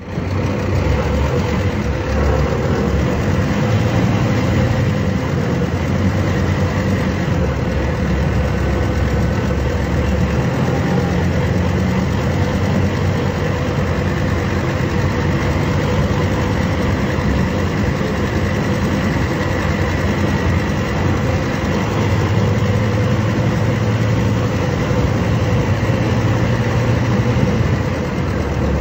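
Scania DC09 five-cylinder diesel engine of a Scania K250 UB city bus, heard from inside the bus. It runs steadily, and its engine note changes a few times.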